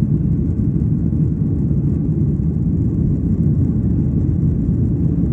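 Airliner taking off, its engines and airflow making a steady low rumble.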